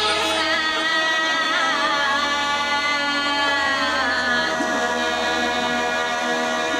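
Bulgarian gaida bagpipes playing a folk tune over a steady drone, with a woman singing along. Her voice drops out about four seconds in, leaving the pipes.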